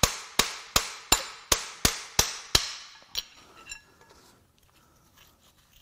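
A steel hand tool striking metal on an engine block: about ten sharp metallic strikes in an even rhythm, nearly three a second, each ringing briefly, then two fainter clicks a little past halfway.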